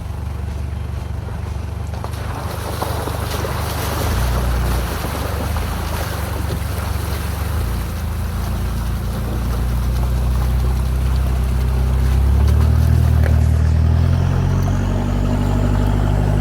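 Toyota 4x4 driving up a dirt trail: a steady low engine drone with tyre and wind noise. The engine note shifts and climbs about twelve seconds in.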